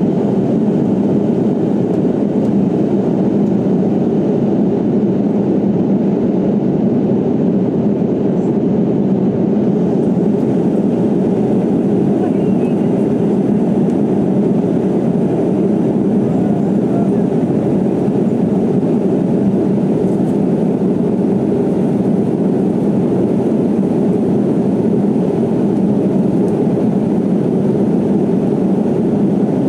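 Jet airliner cabin noise in flight, heard inside the cabin: the engines and the air streaming past the fuselage make a steady, unchanging low noise.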